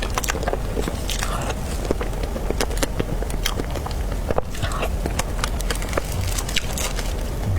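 Close-miked eating: chewing and many small, irregular wet mouth clicks from someone eating soft dragon fruit cake, over a steady low hum.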